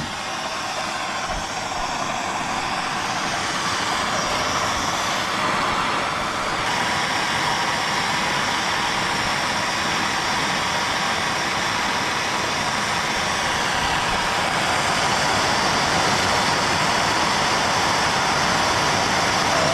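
Handheld gas torch burning with a steady hiss, heating a driveshaft U-joint yoke to melt out the factory injected plastic retainers. It starts suddenly and holds steady.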